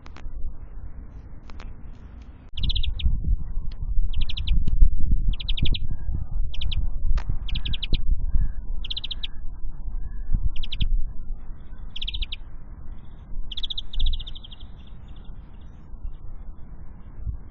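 A small bird at a window feeder calls again and again: short, rapidly pulsed trilling notes about once a second, with a slightly longer one near the end. Under the calls there is low, close knocking and rumbling.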